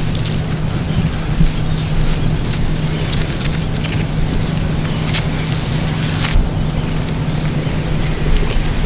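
A small animal calling a steady run of short, high chirps, about two or three a second, over a low steady drone. A few sharp rustles and clicks of dry leaves being handled come through.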